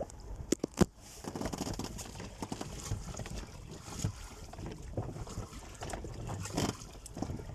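Oars working in an inflatable boat's oarlocks fitted with plastic washers, with a few sharp knocks about half a second in, then steady strokes with water and wind noise on the microphone. The oarlocks turn without squeaking: the new washers have cured the squeak.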